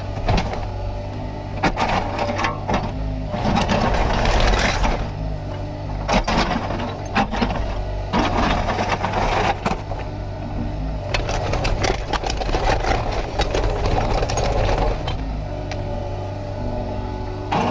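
Kubota KX61-3 mini excavator at work: its diesel engine runs steadily while the hydraulics surge again and again under load, with sharp metallic knocks and clanks in between.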